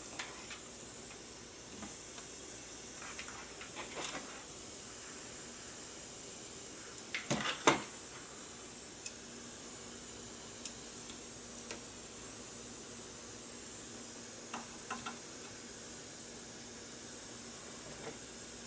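Steady background hiss with scattered faint clicks and rustles of wires and tools being handled on a workbench during soldering, and one sharp tap about eight seconds in. A faint low hum comes in about halfway through.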